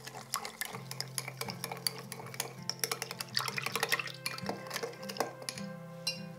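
A kitchen utensil rapidly clicking and scraping against a mixing bowl as ingredients are mixed, over background music. The clicking stops about five and a half seconds in.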